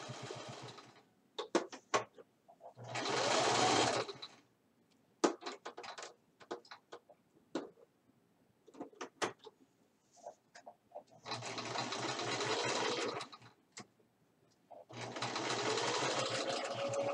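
Sewing machine stitching a buttonhole in several short runs, stopping and starting, with scattered clicks and taps between the runs.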